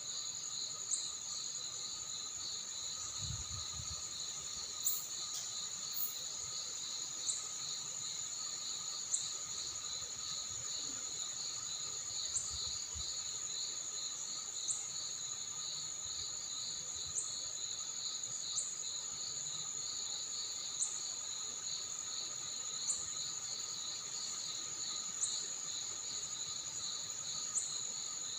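Crickets chirring in chorus: a steady high trill over a pulsing lower trill, with a short sharp chirp about every two seconds. A couple of brief low thuds come about three and about twelve seconds in.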